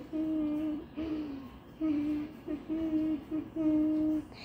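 A child humming a tune: a string of about six held notes of fairly steady pitch, each around half a second long, with short breaks between them.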